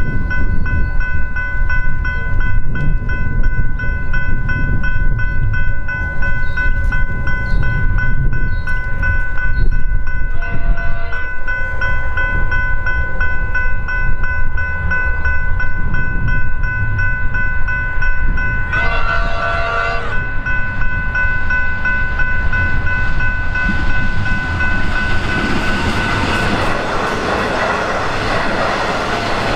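Melbourne Comeng electric suburban train approaching and sounding its horn twice, a short blast about ten seconds in and a longer one near nineteen seconds, over a steady low rumble. Near the end a train's wheels and running gear hiss louder as it passes close by.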